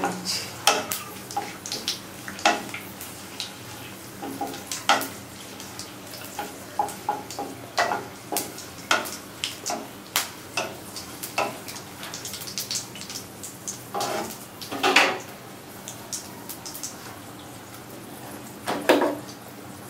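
Wooden spatula knocking and scraping in a non-stick kadai as whole spices fry in hot mustard oil, with a faint sizzle and scattered clinks and knocks of kitchen utensils. A couple of louder clatters come past the middle and again near the end.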